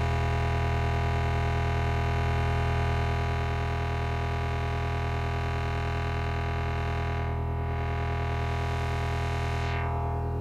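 Arturia MicroBrute analog synthesizer holding a low, buzzy sci-fi drone, fed through a Pigtronix Rototron rotary-speaker effect and Eventide Space reverb. The top end dips briefly about seven seconds in, and near the end the high overtones fall away and the sound goes darker.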